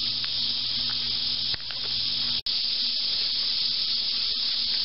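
Steady high-pitched hiss of an insect chorus, with a faint low hum under it; the sound cuts out for an instant about halfway through.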